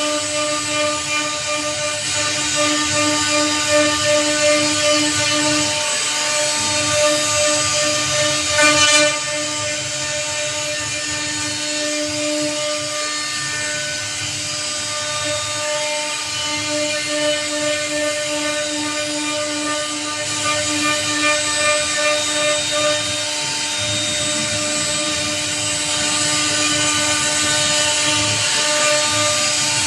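A J-1325 CNC router's spindle running with a steady whine while its end mill carves teak wood, a dense hiss of cutting over it. The cutting briefly gets louder about nine seconds in.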